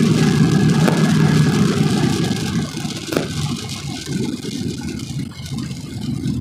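Inside the cab of a 2001 Duramax 6.6 L V8 turbodiesel pickup on the road: a steady engine and road rumble with tyre noise on wet pavement, dropping noticeably about halfway through as the truck eases off. One sharp click a little past three seconds in.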